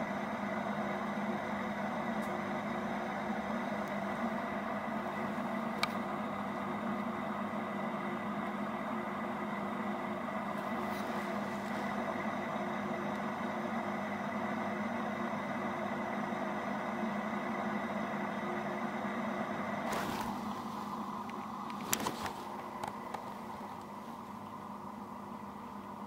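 A steady droning hum made of several held tones over a faint hiss, which changes and grows quieter about 20 seconds in, with a few soft clicks.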